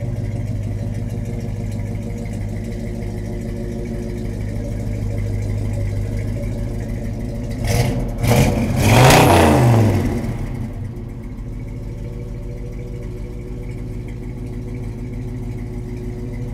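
1967 Chevrolet C10's 509 cubic-inch big-block V8 idling through its dual exhaust. About halfway through it is revved three times, the last rev the longest and loudest, then it settles back to a steady idle.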